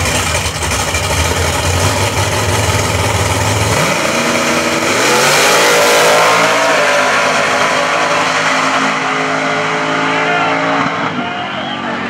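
Two drag-racing cars, a Ford Thunderbird and a Fox-body Mustang, rumbling on the starting line, then launching about four seconds in. Their engines rev hard with rising pitch as they accelerate away down the strip, and the sound fades slowly.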